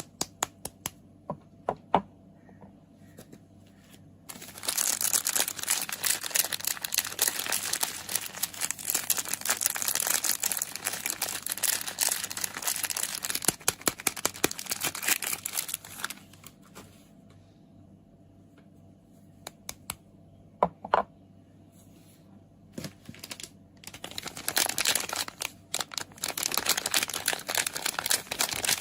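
Soap packaging being unwrapped by hand, crinkling and tearing in two long stretches with a quieter pause between. A few sharp taps or clicks come at the start and during the pause.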